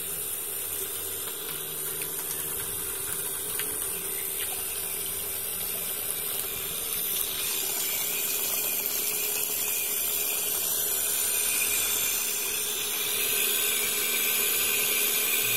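Larens LSWQB-12 12 V, 180 W DC solar surface pump running steadily with a constant hum, and water from its outlet pipe pouring and splashing.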